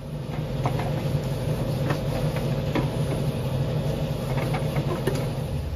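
A steady low machine hum, with a few light clicks.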